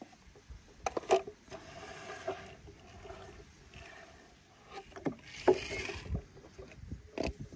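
Toy monster trucks knocking on a wooden ramp and splashing into a tub of water. There are a few sharp knocks about a second in and again around five to seven seconds, with stretches of sloshing water between.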